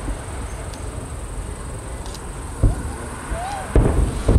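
Distant fireworks shells booming, three dull low thumps in the second half, over a steady high chirring of insects on a summer night.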